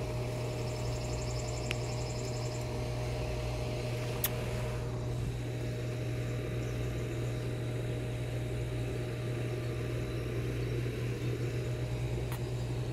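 Steady low mechanical hum of a motor running, with a few short clicks, the sharpest about four seconds in.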